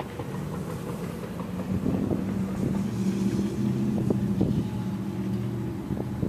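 A vehicle engine running steadily with a low hum, with a few short clicks about four and six seconds in.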